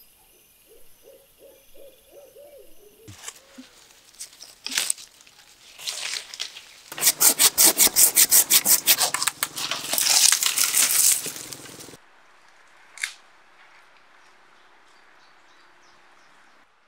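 Hand pruning saw cutting through a tree branch with rapid back-and-forth strokes for several seconds, after a few softer scraping sounds. Faint outdoor background follows, with one sharp click.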